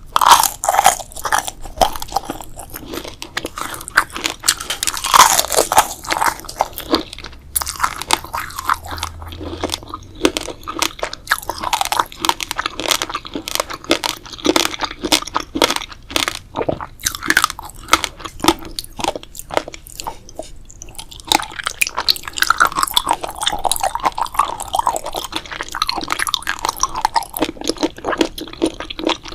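Close-miked crunching and chewing of crisp food, with dense crackly bites going on the whole time.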